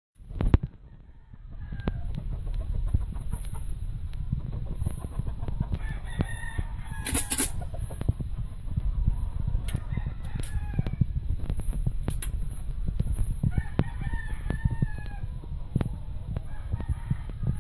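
Kelso gamefowl roosters crowing, several crows a few seconds apart, with clucking between them. A sharp knock comes just after the start, and a steady low rumble runs underneath.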